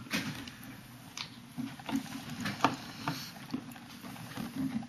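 Light handling noise: scattered small clicks and taps as small plastic food-colouring bottles are handled at a table.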